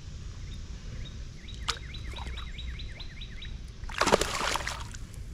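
A songbird sings a quick run of about ten repeated chirps, about four a second. About four seconds in comes a short, loud splash in the water, the loudest sound.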